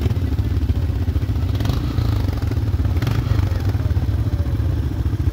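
ATV engine running steadily as the four-wheeler rides along a dirt trail, with the machine rattling over the bumps and two sharper clatters.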